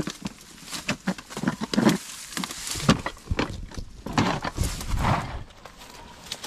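Irregular footsteps and rustling of dry grass and brush as someone pushes through tall vegetation, with a few louder swishes and knocks.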